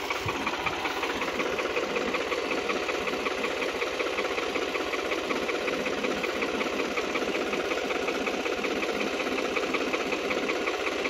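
Diesel engine idling steadily with a fast, even clatter.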